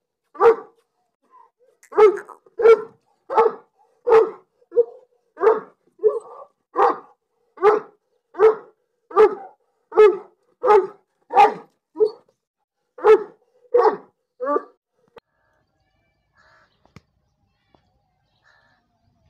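Pakistani bully kutta, a large mastiff-type dog, barking. It gives a steady run of about eighteen single barks, roughly three every two seconds, and stops about three-quarters of the way through.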